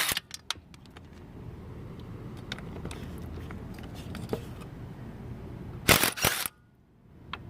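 Craftsman cordless impact wrench hammering in short loud bursts about six seconds in, working on rusty wheel lug nuts, over a steady low background rumble.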